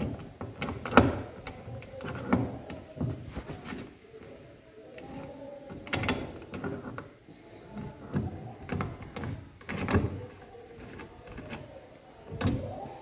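Irregular metal clicks and knocks of the gears and shafts of a Hero Splendor Plus gearbox being handled and turned by hand in the open crankcase, with pliers gripping a shaft. The louder clacks come about a second in, near six seconds and near ten seconds.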